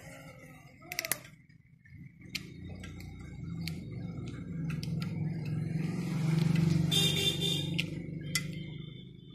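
A motor vehicle passing by: a low engine rumble that swells over several seconds and then fades, with a brief high hiss at its loudest. A few light clicks in the first second.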